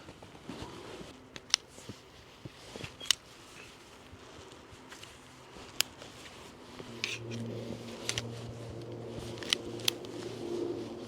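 Sharp, scattered clicks and taps from tent poles and gear being handled while pitching a tent. A low, steady hum sets in about seven seconds in and holds.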